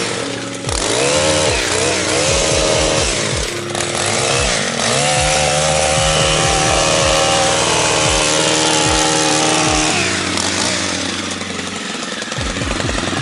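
Gas string trimmer running and cutting, its engine revving up and down several times, then dropping off and fading about ten seconds in.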